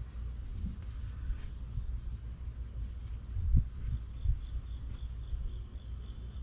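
Insects trilling steadily in a high, even tone over a low background rumble, with a single dull thump about three and a half seconds in.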